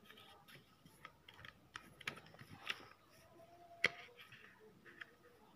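Sheet of lined notebook paper being folded by hand on a hard board: soft rustles and crinkles with scattered sharp clicks and taps as the creases are pressed flat, the loudest about four seconds in.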